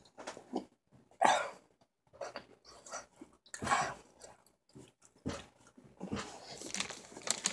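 A person chewing a big mouthful of solid chocolate, with several separate loud, noisy breaths or huffs through the nose and mouth between stretches of quiet.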